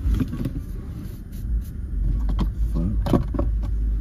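Steady low rumble of a car idling, heard inside the cabin, with a few short knocks from movement and brief mumbled vocal sounds.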